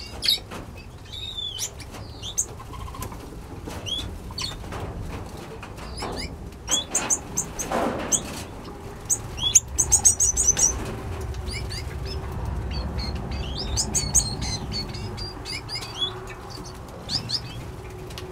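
Mixed aviary of finches and small parrots chirping: a scatter of short, high chirps and quick rising and falling call notes, busiest about ten seconds in.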